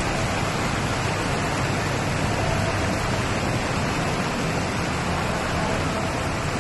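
Heavy rain falling, a steady loud hiss with no let-up.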